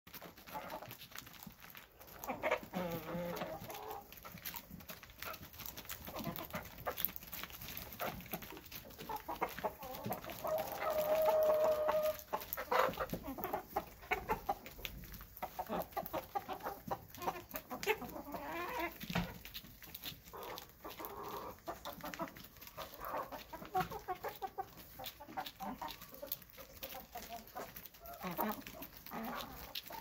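A flock of hens clucking and calling steadily while they eat, over many short sharp clicks of beaks pecking at a plastic feeder. About ten seconds in, one bird gives a longer, even-pitched call.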